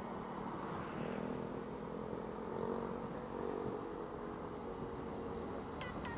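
Motorcycle engine running steadily during a ride, mixed with wind and road noise.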